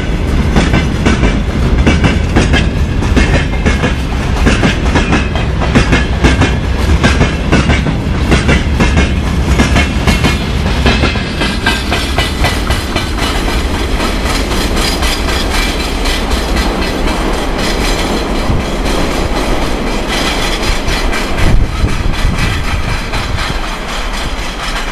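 Freight train of gondola wagons rolling past, the wheels clattering rhythmically over the rail joints. The last wagon passes about halfway through, and the clatter then carries on more thinly as the train pulls away.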